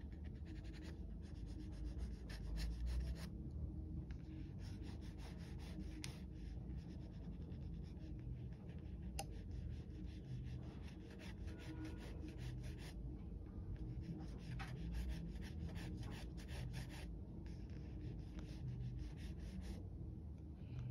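Pencil scratching on sketchbook paper in quick repeated back-and-forth strokes, in runs broken by brief pauses of about a second.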